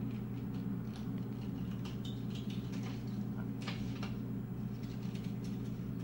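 Scissors snipping through paper in short, irregular cuts, with paper rustling, over a steady low background hum.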